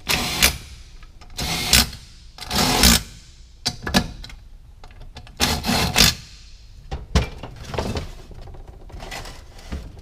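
A power tool run in short bursts, about half a second each, driving in the bolts that join the transaxle case halves, followed by scattered clicks and knocks of metal parts being handled.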